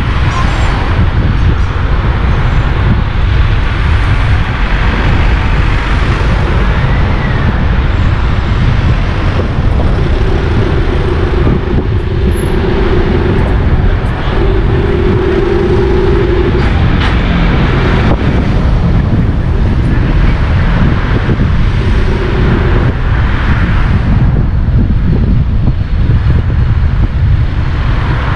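Steady road noise from a car driving through town streets, tyre and wind noise on the microphone, with a plain hum that comes and goes several times.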